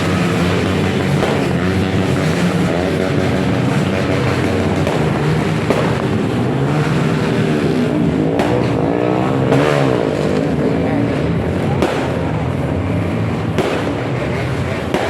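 Several motor vehicle engines running and revving at once, their pitches rising and falling over one another, with a few sharp bangs spread through, like fireworks going off.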